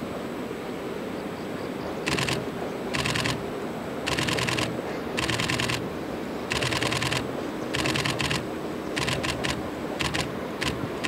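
A camera shutter firing in short bursts of rapid clicks, starting about two seconds in and repeating roughly once a second. Under it is a steady low rumble from a distant diesel locomotive.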